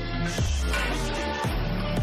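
Background music with sustained tones over a deep bass line.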